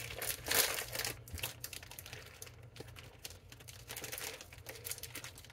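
Plastic bag of shredded cheese crinkling as it is handled, the rustling busiest in the first second and then faint and scattered.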